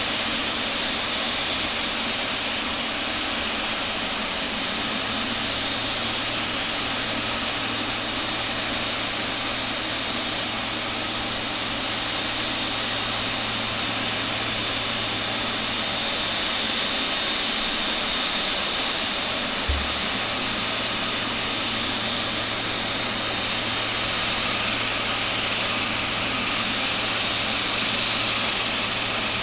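Steady jet whine and rumble from a parked Qatar Airways Cargo Boeing 777, with a short low thump about twenty seconds in.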